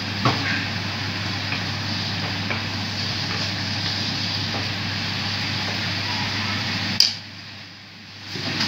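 Ampalaya and black bean sauce boiling and sizzling in a frying pan while a wooden spatula stirs it, with a steady low hum behind. A sharp click comes about seven seconds in, after which the sizzle drops away for over a second before returning.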